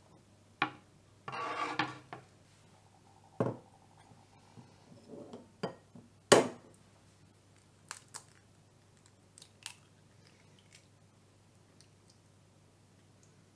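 Kitchen handling sounds: a knife and utensils on a bamboo cutting board, then a glass bowl and eggs being handled, heard as scattered sharp clicks and knocks. A short rustling scrape comes about a second and a half in, and the loudest knock a little after six seconds.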